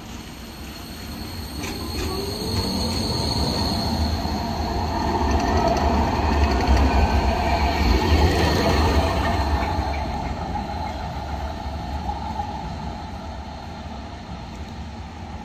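An AVG Stadtbahn tram-train passes close by, growing louder to a peak about seven to nine seconds in and then fading as it pulls away. Its steel wheels squeal in thin, high tones over the rumble on the curved track.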